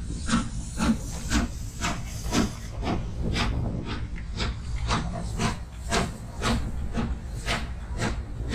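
Steam locomotive exhaust chuffing at a steady pace, about two beats a second, over a low rumble.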